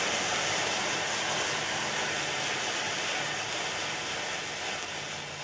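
Homemade iron oxide and aluminium powder thermite burning in a tin can, giving a steady, loud hiss as it throws off sparks; the hiss slowly weakens toward the end as the burn dies down.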